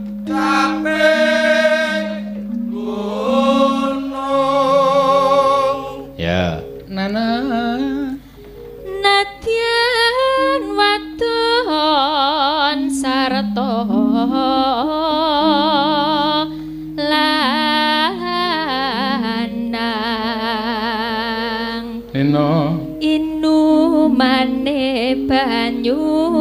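Female sindhen singing a Javanese song in a wavering, ornamented voice over gamelan accompaniment, with brief pauses between phrases.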